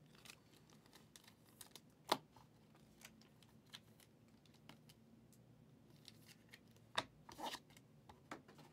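Faint handling of trading cards and card-pack wrappers: scattered light clicks and taps, the sharpest about two seconds in and again near the end, followed by a short rustle.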